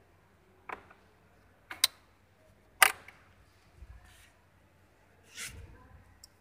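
Sharp clicks and knocks from a car centre-console armrest being handled and fitted: four clicks in the first three seconds, the last the loudest, then softer rustling.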